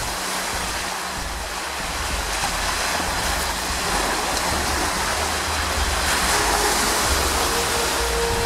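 Small waves breaking and washing onto a pebbly shore in a steady surf wash, with wind rumbling on the microphone.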